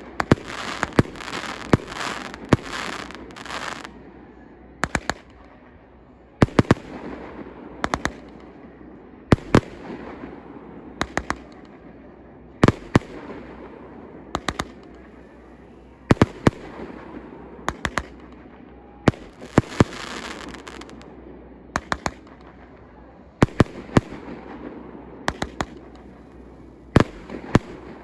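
Fireworks display: sharp bangs, often in close pairs, about every second and a half, each followed by a fading crackle. The crackle is densest at the start.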